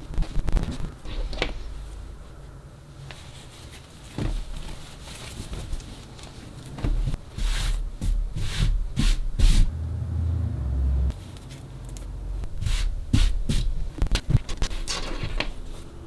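Cotton clothing being handled on a tabletop: fabric rustling and rubbing in irregular bursts as garments are unfolded, smoothed flat with the hands and folded, with soft thumps as the cloth is laid and patted down.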